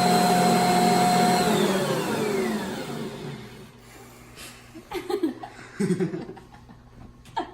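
Electric kitchen mixer motor running with a steady whine, then switched off about a second and a half in, its pitch falling as it spins down. A few brief, quieter sounds follow.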